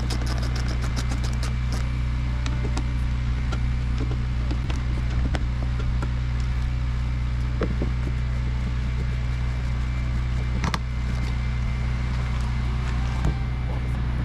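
A steady low mechanical hum runs throughout, with scattered light clicks and taps from hand work on metal and plastic parts. There is a quick run of ticks at the start.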